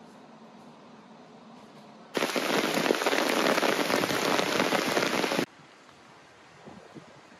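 Heavy rain shower pelting down on a gravel drive and lawns, a loud, dense hiss that starts suddenly about two seconds in and cuts off about three seconds later.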